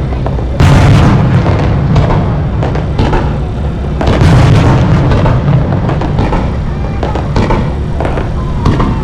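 Fireworks display: a dense run of bursts and booms over a continuous heavy low rumble, with a sudden loud burst about half a second in and another surge of blasts around four seconds.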